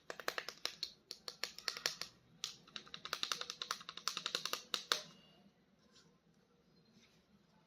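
Plastic toy figure being handled: a rapid run of light clicks and taps that stops about five seconds in.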